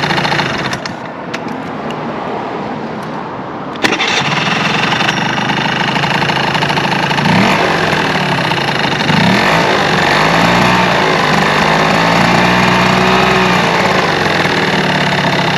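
Early Honda Live Dio ZX scooter's 50cc two-stroke engine running with a rattle, which the owner puts down to the muffler rather than a crankshaft bearing. It runs quieter for the first few seconds, then there is a sharp click about four seconds in and it runs louder, with the pitch rising and falling several times in the second half.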